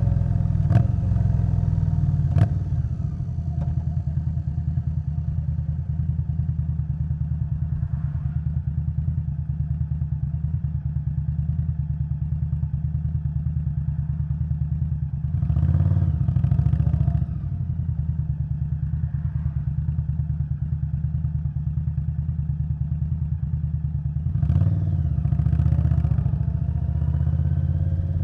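2021 Indian Scout Bobber Twenty's V-twin running through a V&H Twin Slash exhaust while riding. Two sharp clicks come in the first few seconds, and the engine note swells briefly twice, about halfway through and near the end.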